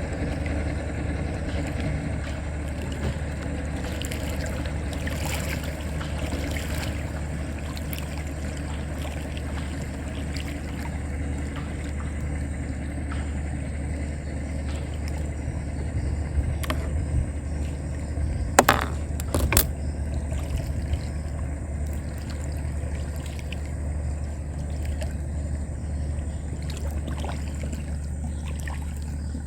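A small boat's motor running steadily at a constant speed. A few sharp clicks or knocks come about two-thirds of the way through.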